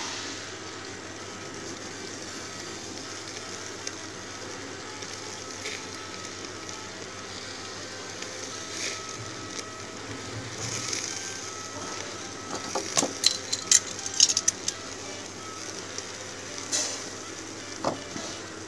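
Chicken and eggplant sizzling on a barbecue grill, a steady hiss with sharp crackles and pops clustering about two-thirds of the way through. Faint music runs underneath.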